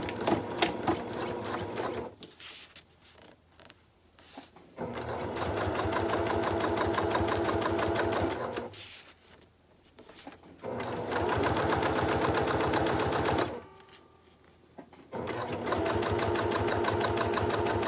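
Electric sewing machine stitching a folded fabric strap, running in four spells of a few seconds each with short stops between them.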